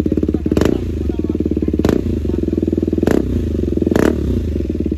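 KTM Duke 390's single-cylinder engine idling steadily through an aftermarket full-system exhaust. A sharp pop comes four times, about every second and a quarter.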